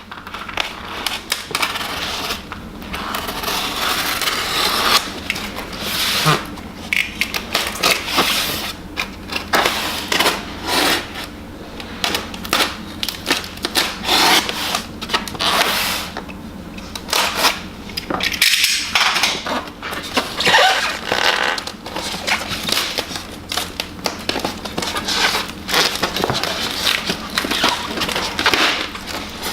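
Statue box packaging being opened and worked by hand: an unbroken run of irregular scraping, rustling and sharp clicks and taps.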